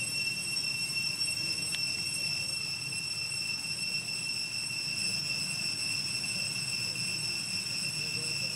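Steady, high-pitched insect drone that holds one unchanging tone throughout, with a faint tick about two seconds in.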